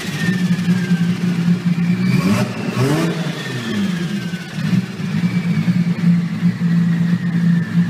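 Nissan Skyline R34's RB26 twin-turbo straight-six idling, revved once about two seconds in, its note climbing and then dropping back to idle. A high falling whistle sounds a few seconds later.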